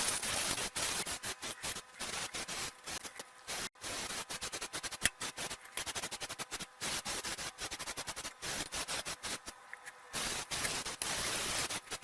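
Paint spraying onto a metal trolley: a hiss in many short spurts separated by brief gaps.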